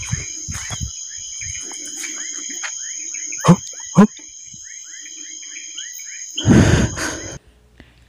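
Night insect chorus, a steady high-pitched trilling, with many short falling chirps throughout. Two sharp knocks come about three and a half and four seconds in, and a loud burst of rustling handling noise follows near the end before the sound cuts off abruptly.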